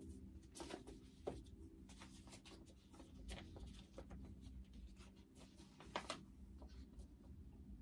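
Faint paper rustling with light taps and ticks as sheet music is leafed through on an upright piano's music stand.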